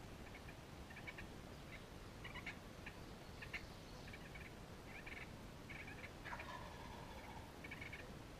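Wild turkeys feeding and calling softly: a faint, irregular string of short clucking calls, one or two a second, with a longer drawn-out call about six seconds in.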